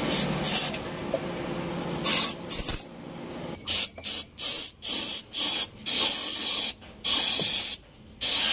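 Aerosol carburetor cleaner sprayed in a run of about ten short spurts, then three longer sprays of nearly a second each in the second half, cleaning a carburetor.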